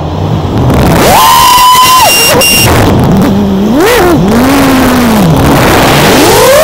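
Brushless motors of a 5-inch FPV racing quadcopter whining, their pitch rising and falling repeatedly as the throttle changes, heard through the onboard camera's microphone. A short high beep sounds about two seconds in, typical of the low-voltage alarm from a 6S motor setup running on a 4S pack.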